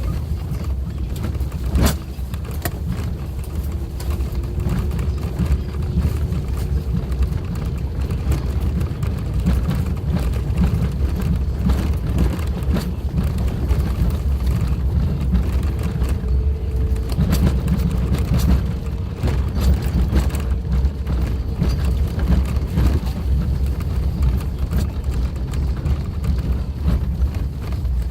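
Suzuki Jimny driving on a rough forest track: a steady low engine and road rumble with the engine note slowly rising and falling, and a sharp knock about two seconds in, with smaller clicks and rattles throughout.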